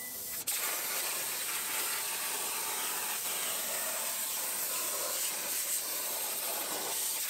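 CNC plasma cutter torch cutting thin sheet metal: a steady hiss of the arc and air, starting with a click about half a second in.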